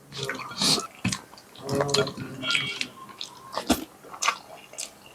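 Close-up eating sounds: irregular wet clicks and smacks of someone chewing hilsa fish curry with rice.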